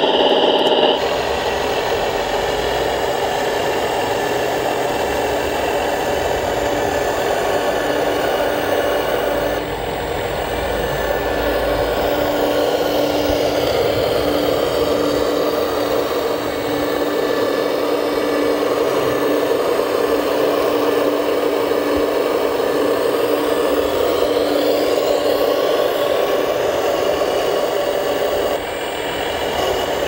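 Hydraulic pump and electric drive motors of radio-controlled construction models (a Bobcat T770 tracked loader, then a Liebherr 970 excavator) running with a steady whine.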